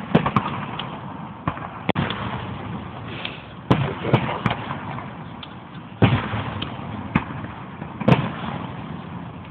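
Aerial fireworks bursting: sharp bangs at irregular intervals, some in quick pairs and triplets, each with an echoing tail.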